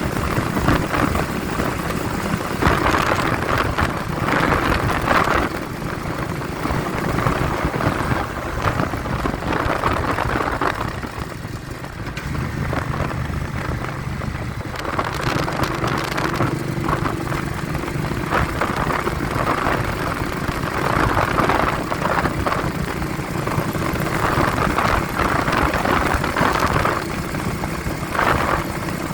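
Vehicle engine running on the road, with wind buffeting the phone's microphone in uneven gusts over a steady low rumble; the engine's pitch steps up slightly partway through.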